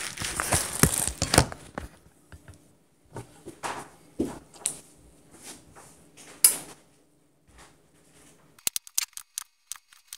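A kitchen knife carving a roast beef on a wooden cutting board, with a fork holding it: scattered scraping strokes and clicks of the blade and fork, and a quick run of short clicks near the end. In the first two seconds, loud rustling and knocks as the camera is handled and set down.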